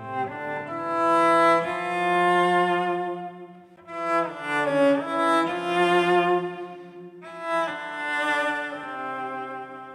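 Cello bowed through an octave-down pitch shifter, playing slow, long sustained notes with a lower octave doubled beneath the main line. The pitch changes every second or so, with a slight bend in the middle.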